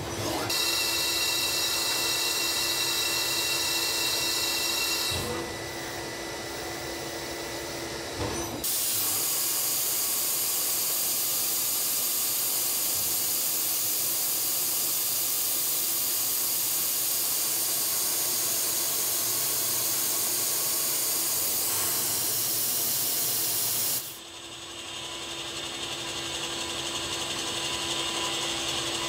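Citizen Cincom B16E CNC sliding-headstock lathe machining a brass part. The spindle and tooling give a steady whine with a low hum for the first few seconds. From about nine seconds in, a loud even hiss runs for some fifteen seconds during drilling and tapping with one tool, then stops suddenly, and the quieter running of polygon turning follows.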